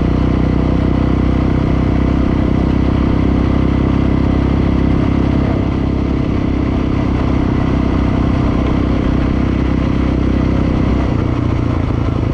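Dirt bike engine running steadily while riding at an even speed, its note shifting slightly about halfway through and again near the end.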